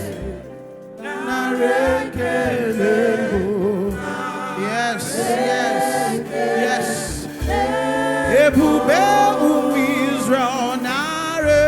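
Live gospel praise singing: a choir of voices with a lead singer over backing music, with a brief lull about half a second in.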